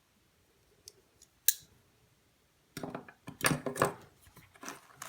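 Small gear being handled: two short clicks, the second sharper, then about three seconds of scraping and rustling as items are pulled from a fabric pouch.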